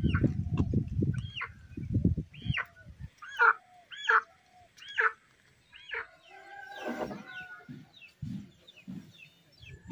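Live domestic chickens being carried upside down by their legs, calling over and over in short arched squawks, a little under one a second, then a denser burst of squawking about seven seconds in. A low rumble runs under the first three seconds.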